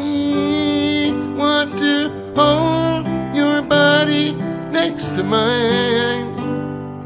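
A man singing to acoustic guitar in a live performance, sung phrases broken by short gaps, with wavering vibrato on the held notes.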